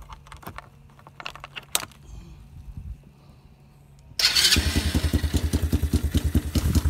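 Light clicks of the ignition key being handled, then about four seconds in the 125cc Chinese ATV's single-cylinder four-stroke engine starts suddenly and runs with rapid, even firing pulses. This is its first run on fresh 10W-40 synthetic oil after the oil change.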